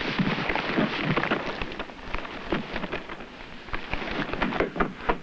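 Branches cracking and rustling as a parachute snagged in a pine tree tears loose and the jumper hanging from it drops. It is a dense run of snaps and crackles, with louder cracks about four and a half and five seconds in.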